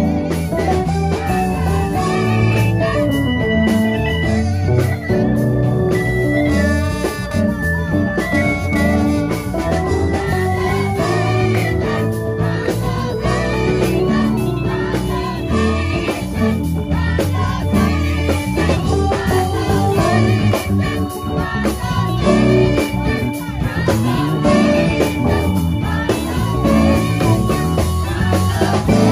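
Gospel choir singing with organ accompaniment, held organ chords under the voices.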